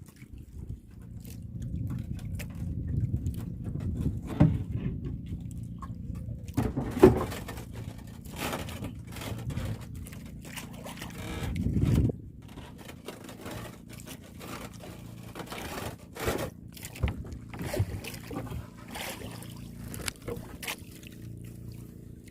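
Small fishing boat's engine running steadily, with scattered knocks and splashes. It is louder for the first twelve seconds or so, then drops off sharply.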